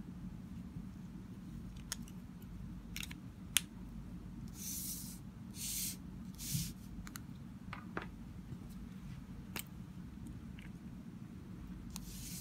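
Paper cards handled and slid across a tabletop: a few sharp taps and clicks, the loudest about three and a half seconds in, and three short papery swishes in the middle, over a low steady hum.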